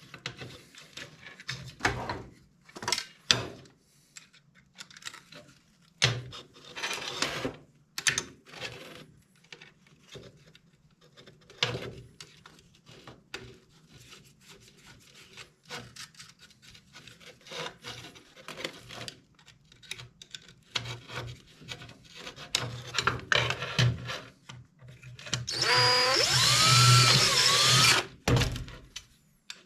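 Small metal hardware being worked by hand: scattered clicks, taps and scrapes as a screw and nut are turned on a screw with a burr on its thread. About 26 seconds in, a louder squealing grind lasts about two seconds.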